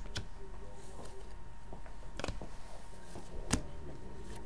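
Hockey trading cards handled in the hand: three sharp clicks of card stock against card, the loudest about three and a half seconds in.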